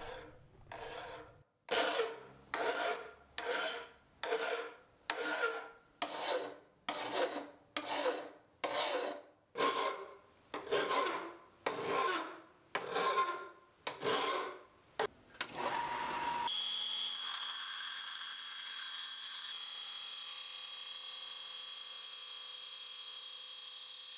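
A hand file rasping along the edge of a 1075 high-carbon steel knife blank clamped in a vise, about one stroke a second, as the blade profile is shaped. A little past two-thirds of the way in it gives way to a 4x36 belt sander running steadily with a high whine while the steel blank is ground against the belt.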